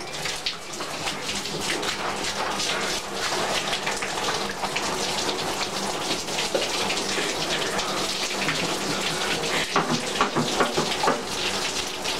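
Ice water poured steadily from a small container over a person's head, streaming down and splashing onto the shower floor.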